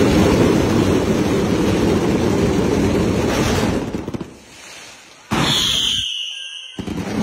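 Rapid barrage of festival firecrackers crackling densely for nearly four seconds. After a short lull, another loud burst comes with a falling whistle, and the sound cuts out abruptly for under a second near the end.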